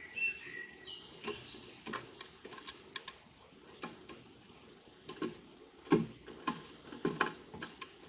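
Eurasian magpie pecking at sunflower seeds on a wooden feeder board: irregular sharp taps of the beak against the wood, coming thicker and louder in the second half. A few brief high bird chirps near the start.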